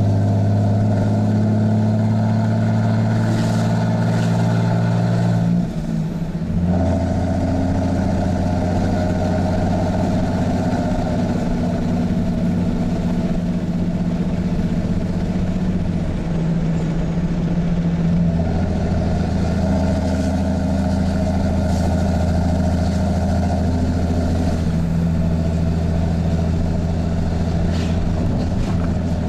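Loud 6.7L Cummins diesel with a straight-piped 5-inch side-exit exhaust pulling under load while towing, heard from inside the cab. About six seconds in the sound dips briefly as the six-speed manual is shifted up, and the engine comes back at lower revs.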